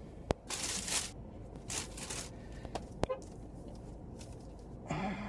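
Plastic shopping bag rustling and crinkling in two short bursts as a hardback book is pulled out of it and handled, with two sharp clicks.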